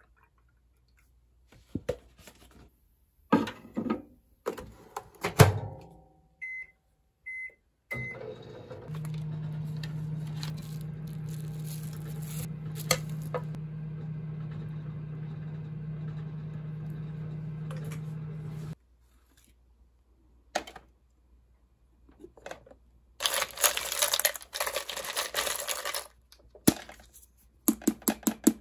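A few knocks and clatters, then three short beeps and a microwave oven running with a steady low hum for about ten seconds before it cuts off. Near the end, coffee capsules rattle as a hand rummages through a clear plastic capsule drawer, followed by a few clicks.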